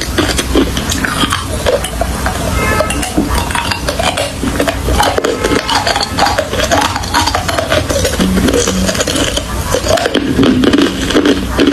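Ice being chewed and crunched between the teeth, a steady run of crisp cracks and crunches.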